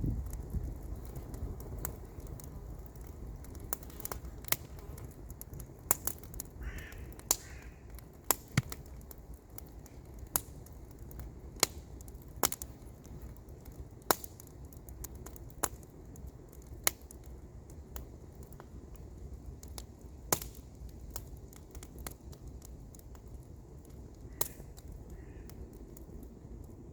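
Wood campfire crackling, with sharp pops scattered irregularly over a steady low rumble. A bird calls twice about a quarter of the way in, and twice again more faintly near the end.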